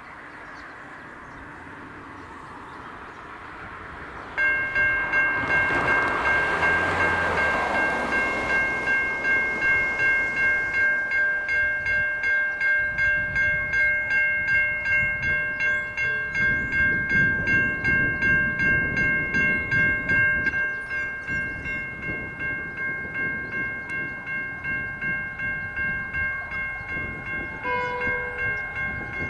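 Level-crossing electronic bells (Safetran Type 3) start suddenly about four seconds in, each a steady electronic tone pulsing at about two strokes a second. About twenty seconds in the sound drops as one of the two bells stops with the boom gates down, leaving the other ringing on.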